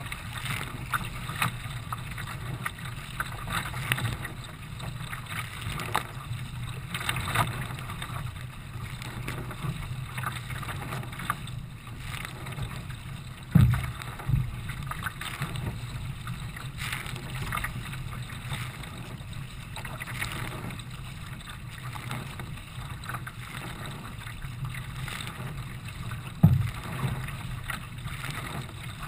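Wind buffeting the microphone of a camera on a kayak's front deck, over a constant low rumble, with water splashing and slapping at the racing kayak's bow every second or two as it cuts through choppy water. Two sharp loud low thumps, one about halfway through and one near the end.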